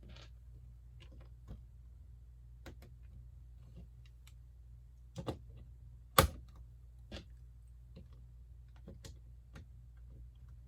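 Plastic Lego pieces clicking as they are handled and pressed together: scattered small clicks and taps, with a sharper snap about six seconds in.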